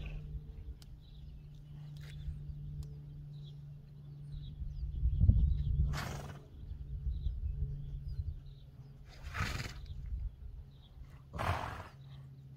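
A horse blowing or snorting through its nostrils three times, each a short breathy burst, about a second or two apart in the second half. A low rumble about five seconds in, and a steady low hum underneath.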